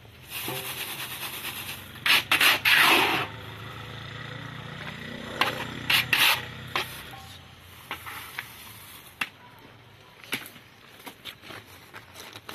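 Hot roasting sand hissing and rattling through a plastic sieve basket as freshly popped popcorn is shaken to separate it from the sand, with the loudest scraping about two to three seconds in. This is followed by scattered scraping and clicking of a tool against the sand in an iron wok.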